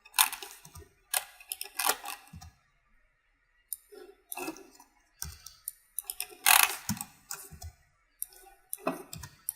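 Irregular clicking of a computer mouse and keyboard, a few scattered clicks at a time with short pauses between them.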